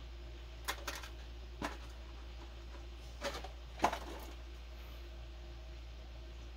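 Hard plastic packaging tray being handled: a handful of sharp plastic clicks and knocks, the loudest a little under four seconds in.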